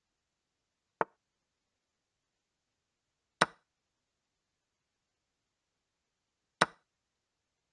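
Chess.com's digital chess-piece move sounds, three sharp wooden clicks with the board otherwise silent. A plain move click comes about a second in, then two louder capture sounds at about three and a half and six and a half seconds.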